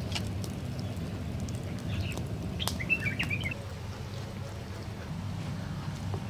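A small bird chirping in a brief flurry about three seconds in, over a steady low rumble, with a few sharp clicks scattered through.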